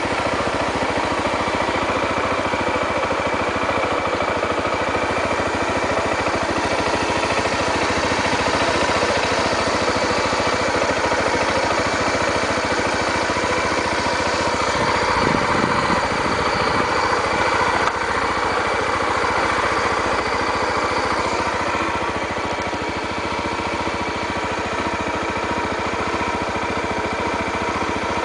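2008 Honda XR250 Tornado's single-cylinder four-stroke engine running steadily, with a brief change in the sound about halfway through.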